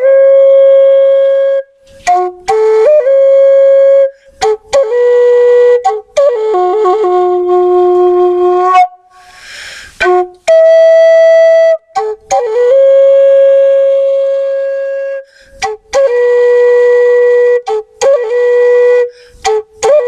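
Solo flute-like wind instrument playing a slow melody of long held notes, each broken off by a short gap, with a breathy hiss about halfway through.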